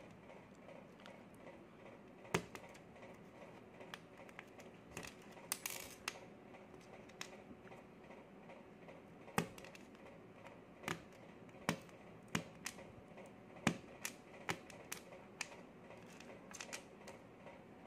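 Brittle brown-sugar dalgona (honeycomb candy) being chipped at with a needle: irregular sharp clicks and small snaps as bits of the candy crack off and drop onto a wooden tabletop, coming more often in the second half.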